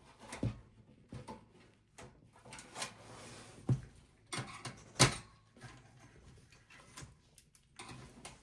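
Knocks, clicks and a short scrape as parts inside a desktop PC case are handled and worked loose, with a sharp knock about five seconds in.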